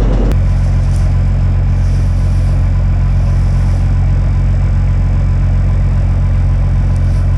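Combine harvester engine running steadily at a constant speed, a loud, even low drone with no change in pitch.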